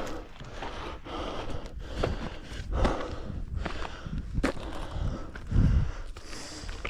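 A hiker's footsteps on a dry, rocky trail: irregular scuffs and crunches of boots on rock and grit, with a dull low thump a little before the end.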